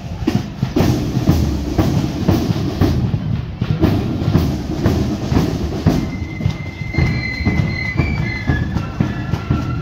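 Marching flute band going past: bass drum and side drums beating about twice a second. From about six seconds in, high flute notes come in over the drums.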